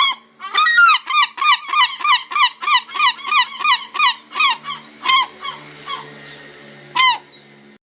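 A gull calling: a fast run of loud, repeated yelping notes, about three a second, that fades away after about four seconds, then one more loud call near the end.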